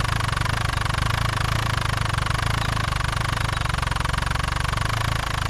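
Engine sound effect of a cartoon farm tractor running steadily with an even, fast low chug.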